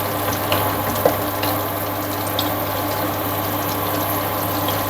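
Chopped onions frying in butter in a pot: a steady sizzle with scattered small crackles, over a steady low hum.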